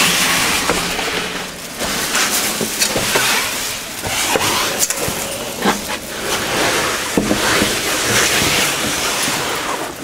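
Close rustling and crackling of clothing and a plastic carrier bag rubbing on the microphone, with scattered scuffs and knocks of footsteps, as someone climbs a narrow stone stair.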